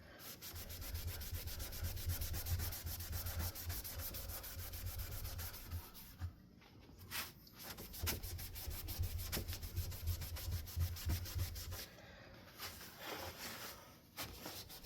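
Wet wipe scrubbed hard and fast back and forth over a Hunter Stratford ceiling fan blade to lift caked-on dirt: a quick rhythmic rubbing, broken by a few short pauses.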